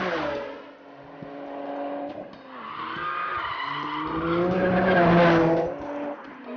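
RUF CTR Yellow Bird's twin-turbo flat-six engine driven hard: its pitch drops quickly at the start as it comes off the throttle, then rises steadily under acceleration to its loudest about five seconds in, and falls away sharply near the end.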